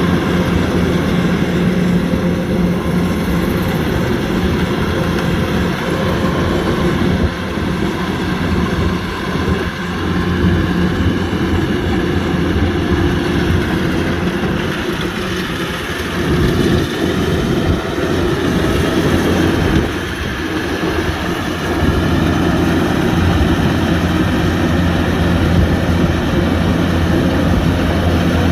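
Kubota DC-105X combine harvester's diesel engine running steadily with a low hum while harvesting rice, the level dipping briefly a few times.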